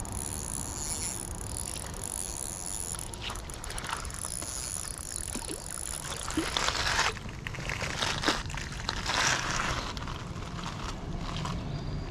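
Spinning reel being cranked, a thin steady whine that stops a little after six seconds in, while a hooked small sunfish is reeled in. The fish splashes at the water's surface about six seconds in and again around nine seconds.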